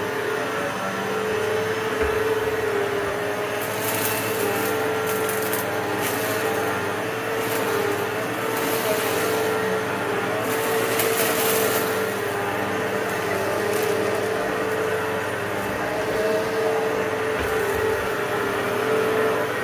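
A 12-amp upright vacuum cleaner running with a steady motor whine, with bursts of crackling and rattling as debris is sucked up, strongest about four seconds in and again around ten to twelve seconds in.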